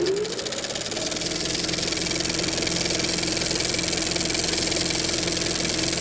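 Old film projector sound effect: the motor comes up to speed with a rising whine over the first second, then runs with a fast, even rattle, fading out near the end.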